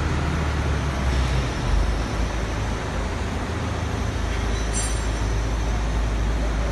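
Steady low rumble and hiss of factory-hall background noise.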